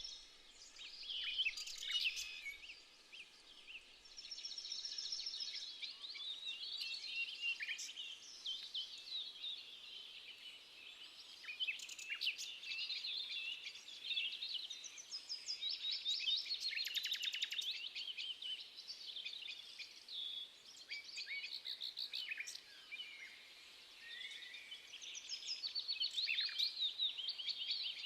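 Several songbirds singing and calling at once, overlapping chirps and fast trills, with the busiest trilling about halfway through and again near the end.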